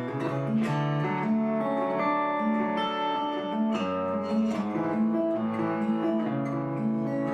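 Acoustic guitar playing an instrumental passage of a country song, strummed and picked chords with no singing.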